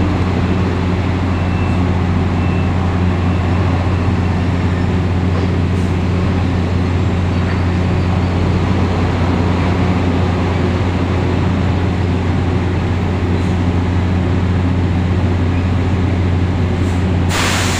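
A machine running with a steady, loud low hum that holds one pitch throughout, and a short hiss near the end.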